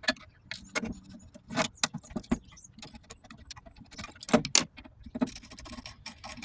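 Irregular metallic clicks, clinks and rattles as an extruded heatsink is worked off a pump battery charger, with a few louder knocks about a second and a half in and again around four seconds in.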